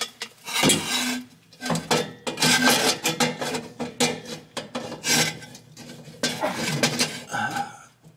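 Metal scraping and grating in irregular strokes, with some clinking, as a flathead screwdriver pries at a bent exhaust pipe collar to open it so the pipe can slide on.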